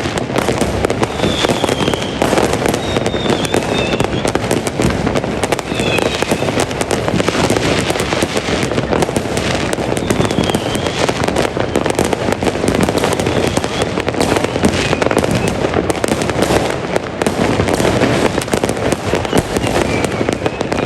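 A dense, continuous barrage of fireworks and firecrackers, with bangs and crackling going off without a break. Short faint high whistles rise above it now and then.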